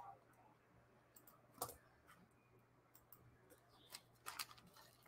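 Near silence with a faint low hum, broken by a handful of small, sharp clicks and taps from things being handled at a desk. The sharpest comes about a second and a half in, and a little cluster follows near four seconds.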